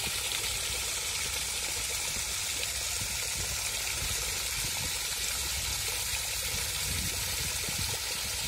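Steady rush of water escaping from a 300 NB ERW steel pipe that has split along its long seam under hydrotest pressure, with a low rumble underneath.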